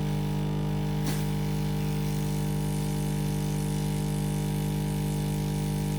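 Steady electric buzz of a hot air rework station, running while it heats a MOSFET in the motherboard's VRM section to desolder it, with one light click about a second in.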